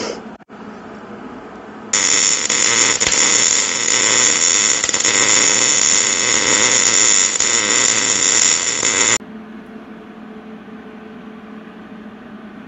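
Wire-feed (MIG) welder arc crackling as a bead is run on the steel truss plates, starting about two seconds in and stopping abruptly after about seven seconds.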